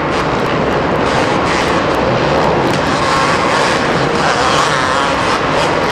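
Two-stroke motocross race bikes running hard on a supercross track, their high, buzzing engine note wavering up and down with the throttle. Loud and continuous.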